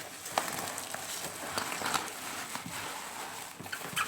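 Rustling and crinkling of packaging being handled and torn open by hand, with scattered sharp clicks and crackles.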